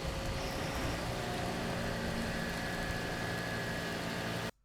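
Fire engines idling, a steady engine rumble under a dense hiss, which cuts off abruptly near the end.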